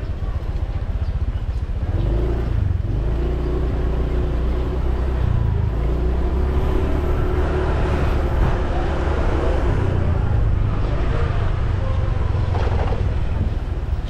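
Motorbike running at riding speed along a street, a steady low rumble with a faint engine hum that wavers a little through the middle.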